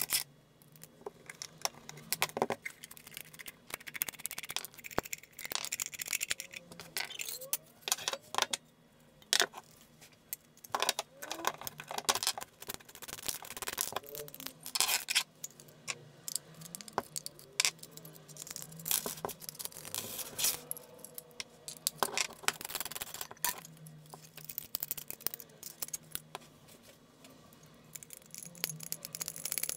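Guitar effects pedal being taken apart by hand: irregular clicks, scrapes and small metallic rattles as screws, nuts and washers come off and the folded aluminium enclosure is handled.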